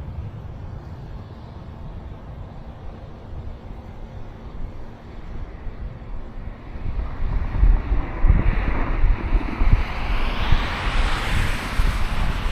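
Wind buffeting the microphone in an outdoor storm, with a vehicle passing by in the second half: its tyre noise swells to a peak near the end and begins to fade.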